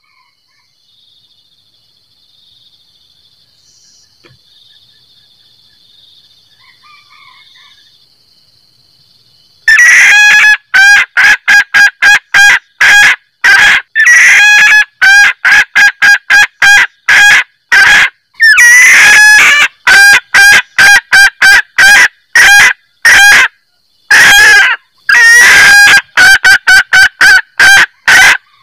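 An F1 (first-generation hybrid) junglefowl hen cackling, a call used to lure junglefowl cocks. After about ten seconds of near quiet with a faint steady high hum, a long run of loud, rapid, repeated 'kek' notes begins, broken by a few short pauses.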